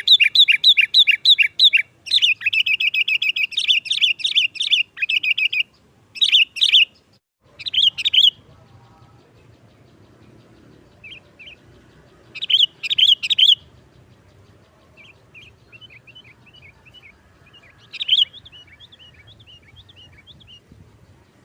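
Sooty-headed bulbul (kutilang) calling in full voice. For about the first five seconds it gives a fast, unbroken string of sharp chattering notes, then short loud bursts every few seconds with softer, scattered chirps between them. This is the sharp 'nggaruda' chatter that bird keepers play to lure and excite other bulbuls.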